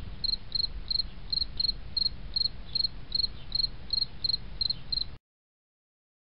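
Cricket chirping, short high chirps about three a second over a low hum; it cuts off suddenly about five seconds in.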